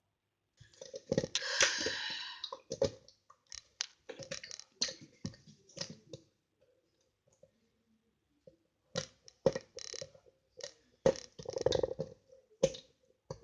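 Slime being handled: sticky clicks, crackles and wet squelches in short bursts, with a pause of about two seconds midway.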